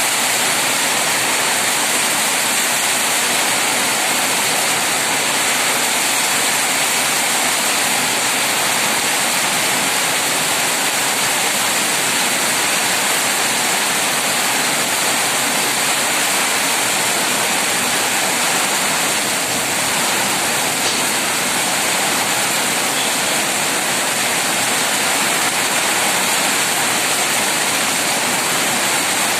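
Heavy rain driven by strong wind: a loud, steady rushing that holds without a break.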